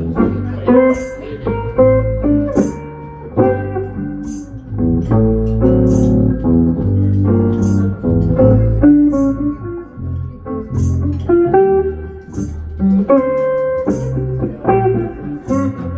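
Band playing an instrumental passage: guitar lead notes over a bass line, with a cymbal struck steadily a little under once a second.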